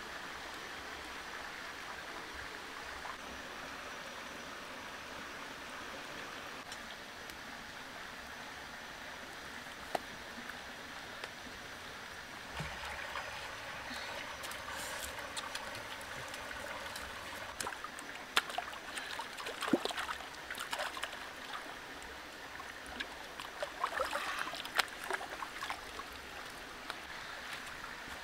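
Steady rush of a stream flowing over rocks, with scattered sharp clicks and knocks from about halfway through.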